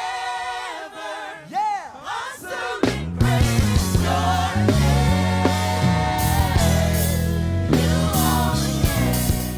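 Live gospel praise music: singers hold long sung notes over light accompaniment, then about three seconds in the full band enters with a heavy bass line and drums.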